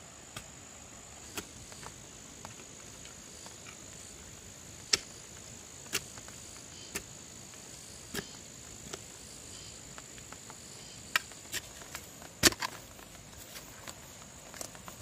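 Long-handled narrow digging spade stabbing into hard, stony clay soil: sharp, irregular strikes about once a second, the loudest a little past halfway. A steady high insect drone runs underneath.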